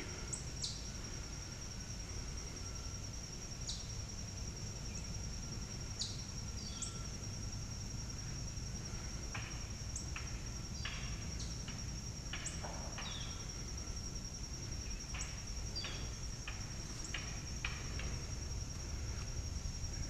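A steady high-pitched insect drone throughout, with short bird chirps scattered through it that come more often in the second half, over a low outdoor rumble.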